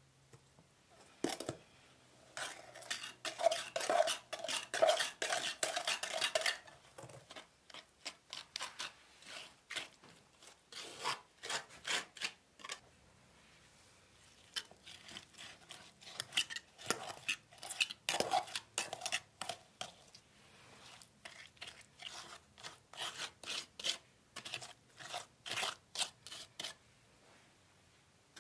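Small steel trowel scraping and tapping against stone and wooden floor bricks in quick short strokes while mortar is worked into the joints, with a louder, ringing run of scrapes for about four seconds starting two seconds in.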